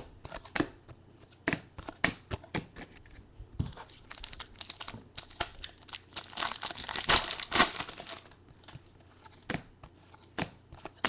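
Foil trading-card pack wrapper crinkling and tearing, with short clicks and snaps of cards being handled and flipped through by hand. The crinkling is densest and loudest from about five to eight seconds in.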